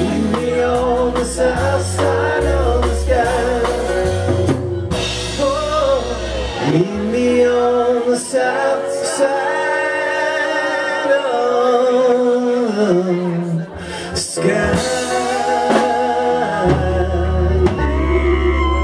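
Live rock band playing loudly: drums, a bass line that steps from note to note, and a man singing a gliding melody over guitar.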